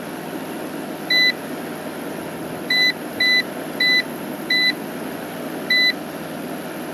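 Control-panel buzzer of an AZO ESB hybrid off-grid inverter giving short, identical key-press beeps, six times at uneven intervals, as its buttons are pressed to step through the display readings. A steady fan-like noise runs underneath.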